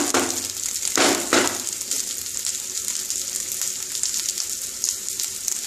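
Gobindobhog rice frying in ghee in a nonstick wok over a low flame: a steady, crackling sizzle. A wooden spatula gently turns the rice, with two soft stirring scrapes, one at the very start and one about a second in.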